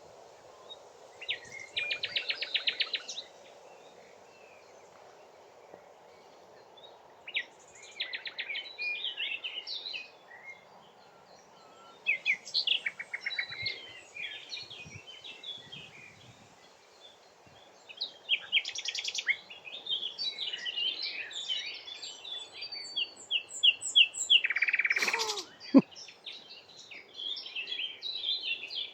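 A songbird singing repeated phrases, each opening with a rapid trill and running into twittering, about every five or six seconds. A brief loud sound, falling in pitch, cuts in about three-quarters of the way through.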